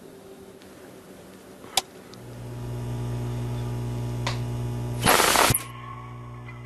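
A steady machine hum starts about two seconds in, after a single click, and holds at an even level with several steady tones; about five seconds in a short, loud rush of noise cuts across it for about half a second.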